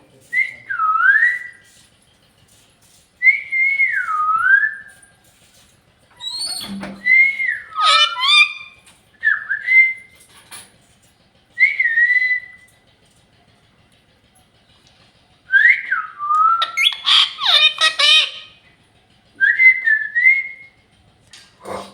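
Pet parrot whistling in short swooping phrases, about seven of them with pauses between; two of the phrases are busier and harsher, breaking into squawky chatter.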